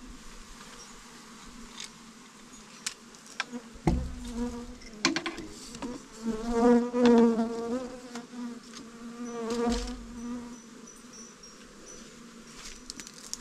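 Bees buzzing, with a loud wavering buzz as one passes close about six to eight seconds in and again near ten seconds. A few sharp knocks sound around four and five seconds in.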